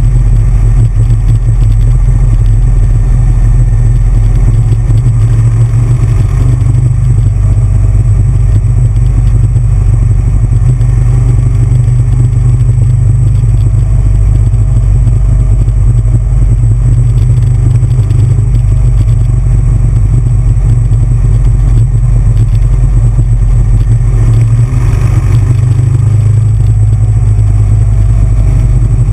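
Big Bear Choppers custom V-twin motorcycle running at road speed through a run of curves, a loud steady low engine drone mixed with wind rush on the onboard microphone.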